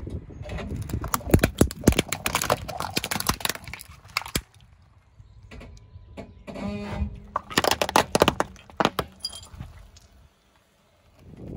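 Plastic dishes filled with jelly cracking and crunching under a slowly rolling car tyre: a dense run of sharp cracks over the first four seconds, a pause, then another burst of cracks from about six and a half to nine seconds in.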